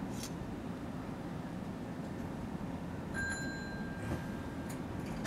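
Steady low rumble of a Nankai 1000-series electric train standing at the platform with its doors shut, just before departure. A brief high beep sounds about three seconds in.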